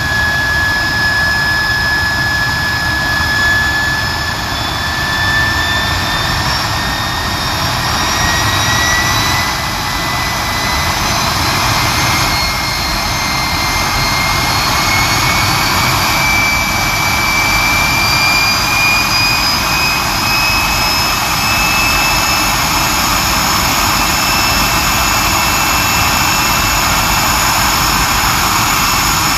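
Walter M701C-500 turbojet engine running on a ground stand: a steady jet roar under a high whine that climbs slowly in pitch as the engine gradually speeds up.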